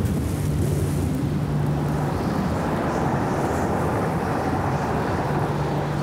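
Sandstorm wind blowing hard, a steady rushing noise that swells about two seconds in, with a low steady drone underneath at the start and again near the end.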